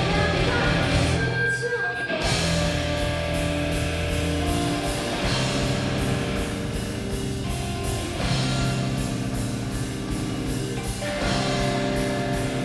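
Rock band playing: electric guitar chords over a drum kit, with a short break in the low end about two seconds in.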